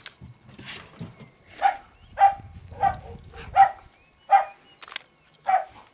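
A border collie barking: about six short, sharp barks a little over half a second apart, starting nearly two seconds in.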